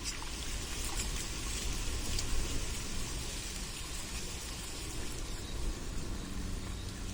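Steady pond-side water ambience, an even hiss with a few faint drip-like ticks in the first seconds, over a low rumble.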